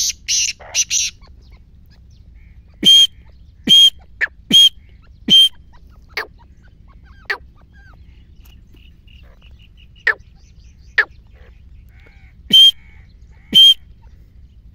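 Grey francolin calling: loud, shrill notes repeated in short runs, four in a row about a second apart a few seconds in and two more near the end, with sharp single notes in between.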